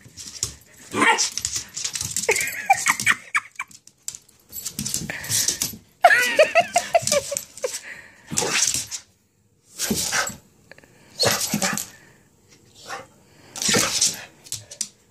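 Dog barking in play, a string of short barks one to two seconds apart.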